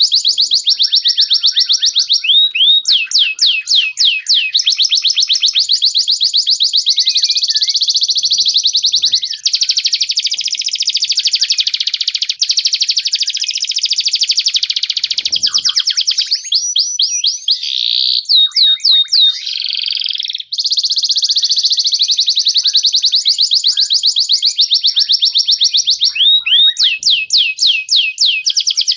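Domestic canary and white-rumped shama singing: long, rapid trills of repeated high notes, broken three times by short runs of clear falling whistles.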